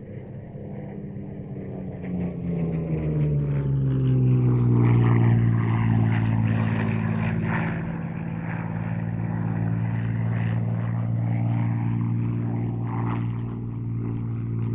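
Hispano Buchon's Rolls-Royce Merlin V12 engine in a flypast, running hard. The engine note swells and drops in pitch about two to four seconds in, then runs on steadily at the lower pitch.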